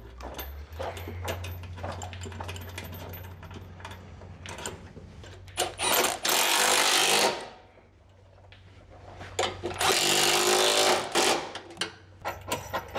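Cordless Milwaukee Fuel impact tool hammering nuts down onto a steel bracket bolted to a truck frame, in two bursts of about a second and a half, around six and ten seconds in. A low steady hum sits underneath until about eight seconds in, and short clicks and clinks of parts come near the end.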